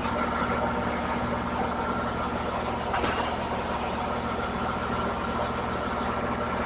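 Steady machinery hum with a faint high tone running through it, and a single sharp click about three seconds in.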